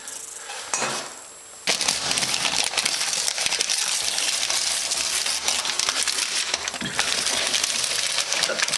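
Newspaper, plastic sheeting and masking tape being pulled off and crumpled by hand: a dense crackling rustle that starts about two seconds in.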